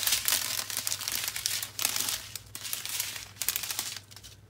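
Small plastic bags of diamond painting drills crinkling and rustling as they are handled and sorted by hand, in quick irregular bursts that die away near the end.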